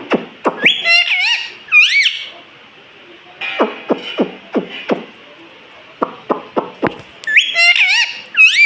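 Pet parrot making quick runs of sharp clicks and short squeaky, swooping whistled calls that rise and fall, in two bursts: about a second in and near the end.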